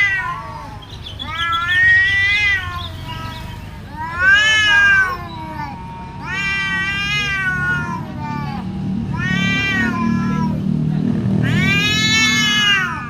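Two cats fighting: a run of about six long, drawn-out yowls that rise and fall in pitch, with a low rumble underneath in the later part.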